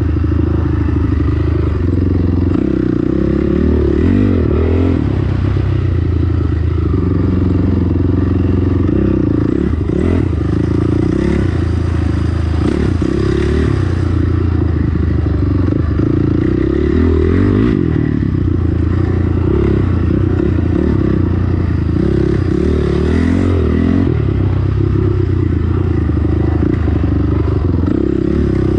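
Dirt bike engine, heard close up from the handlebars of the bike being ridden, running loud with its pitch rising and falling as the throttle is opened and closed. Rattling from the bike can be heard over the bumps.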